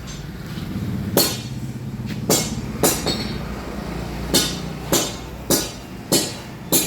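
Background song with sharp drum hits over a steady low hum, the hits falling about every 0.6 s in the second half.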